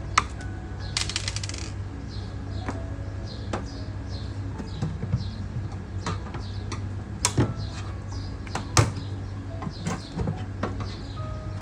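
Irregular sharp metallic clicks and clinks of screws, screwdriver and sheet-metal panels as the casing of a washing machine is taken apart, with a low steady hum underneath.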